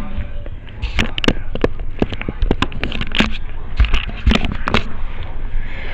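Irregular clicks, knocks and light scrapes of a video doorbell unit being handled and worked at by hand, several a second, with a louder scraping knock near the end.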